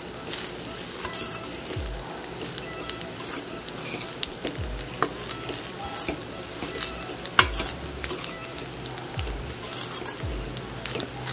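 A metal spatula stirring and tossing rice in a stainless-steel pan, scraping and clinking against the pan every second or two, over a steady frying sizzle.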